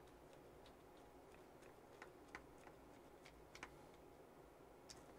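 Faint, irregular small clicks and ticks of a screwdriver turning a screw as the front bumper of an RC buggy is bolted back on.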